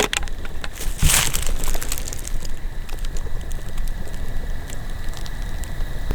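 Footsteps crunching through dry leaves and grass, with a louder rustling crunch about a second in.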